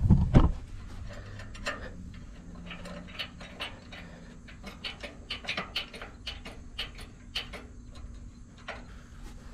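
Turnbuckle on a tractor three-point-hitch anti-sway bar being turned by hand to tighten it, giving many small irregular metallic clicks and ticks, with a louder knock at the very start.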